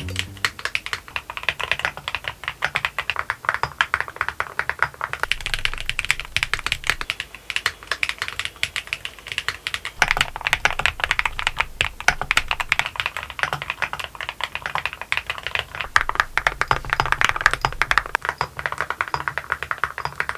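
Mechanical keyboard being typed on: a fast, continuous stream of key clicks.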